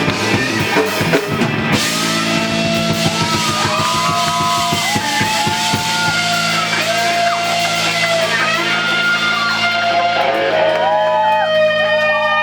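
Live rock band playing: drum hits and cymbal wash for the first couple of seconds, then electric guitar lines sliding and bending in pitch over a held low chord.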